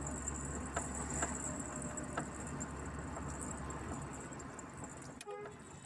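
Truck running on the road, heard from inside the cab: a steady low engine drone with a steady high whine and a few sharp rattles and clicks, fading down about five seconds in.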